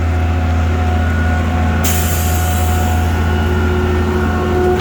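Diesel engine of a concrete boom pump truck running steadily. About two seconds in a sudden air hiss starts and fades out.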